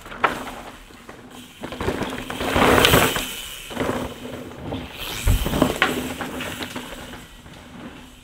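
Mountain bike ridden on a dirt trail: surges of tyre and dirt noise, with a heavy low thud about five seconds in and a click soon after.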